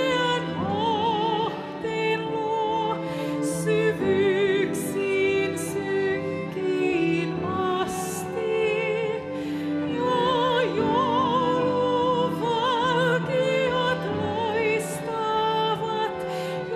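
A classically trained soprano singing a slow song in Finnish with wide vibrato over held accompanying chords, live with a headset microphone.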